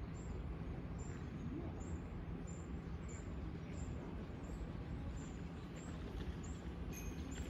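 Quiet outdoor ambience: a steady low rumble with faint bird chirps.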